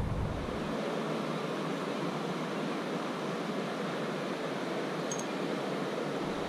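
Steady rushing noise of flowing creek water.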